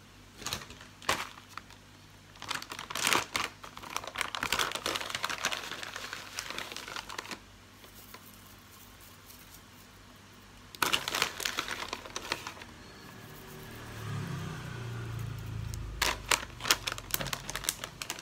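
Sheets of dry Korean seasoned laver (roasted seaweed) being crumbled by hand, crackling and crinkling in three spells.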